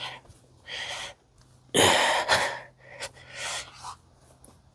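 A person breathing heavily: several noisy breaths in and out, the loudest about two seconds in.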